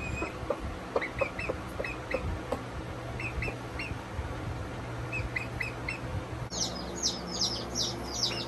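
Birds chirping: short chirps in twos and threes with a few small clicks, then, after a sudden change about six and a half seconds in, a quick run of high, falling chirps.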